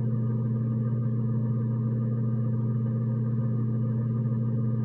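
Steady low-pitched hum, even and unchanging, with a constant drone from a running fan or electrical appliance.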